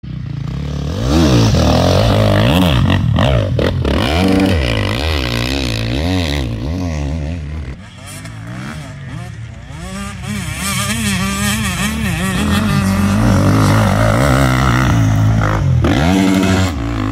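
Enduro dirt bike engines revving hard, the pitch rising and falling over and over as the bikes accelerate and ease off over rough ground and up a sand climb. There is a brief dip in loudness about eight seconds in.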